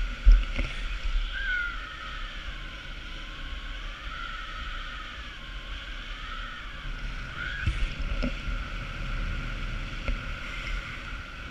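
Minari paramotor engine and propeller running steadily in flight, the pitch wavering gently up and down, with wind rumbling on the microphone.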